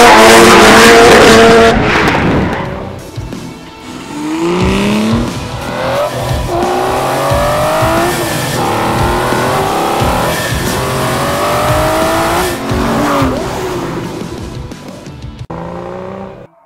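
Loud tyre squeal with a drift car's engine for the first couple of seconds. Then a race car engine revs up again and again in rising sweeps that break off and start over, fading out near the end.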